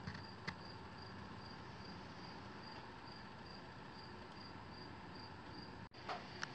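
Faint, regular high-pitched chirping, about three chirps a second, over a low steady background, with a few light clicks.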